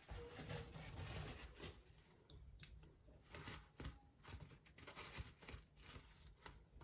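Near silence with faint scattered clicks and light rustling of small objects being handled, and one sharper click at the end.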